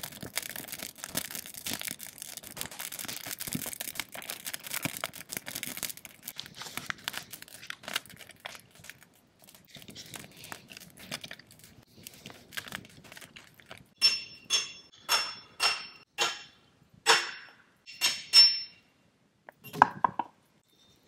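Crinkling and rustling that thins out into scattered ticks, then a run of about eight sharp, ringing clinks roughly half a second apart.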